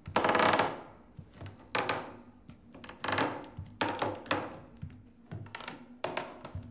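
A series of about seven irregular knocks, each dying away quickly, the first and loudest right at the start, over a faint steady low hum.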